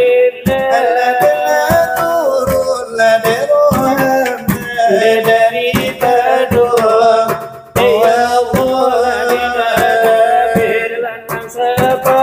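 Salawat dulang: men chanting a Minangkabau devotional song while beating rhythm with their fingers on large brass trays (dulang). The voices and the tray strikes run together with one brief break in the middle.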